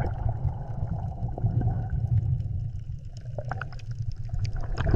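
Underwater ambience: a deep, churning rumble of water with bubbling and scattered small clicks.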